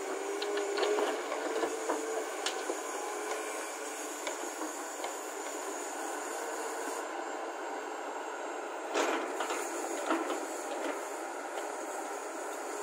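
Hyundai 220LC hydraulic excavator running steadily, with scattered clatter in the first few seconds as a bucketload of earth and stones drops into a tipper truck's steel body, and a louder crunch about nine seconds in.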